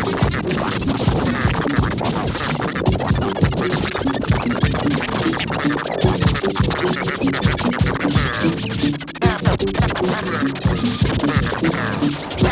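Loud, chaotic noise music: dense scratching and rapid clicks over a pattern of short repeated low notes, without a pause.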